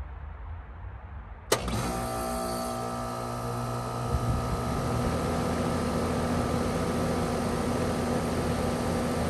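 Rheem RP14 heat pump starting up and running: a steady mechanical hum with several held tones, beginning abruptly about a second and a half in after a low rumble, and shifting a little about four seconds in.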